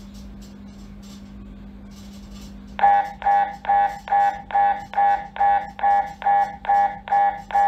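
MRI scanner: a steady low hum, then about three seconds in the gradient coils start a pulse sequence, loud, even tonal beeps a little over two per second.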